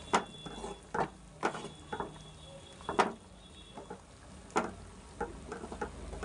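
Wooden spatula stirring a thick yogurt-based chicken gravy in a nonstick pan, knocking and scraping against the pan in irregular sharp clicks, roughly one a second.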